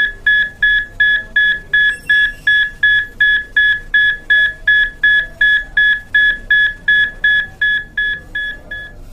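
Electronic alarm beeping a single high note over and over, about three short beeps a second.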